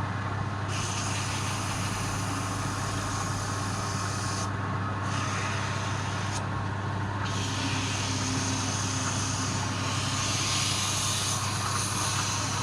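A machine running steadily, with a constant low hum under a wide hiss.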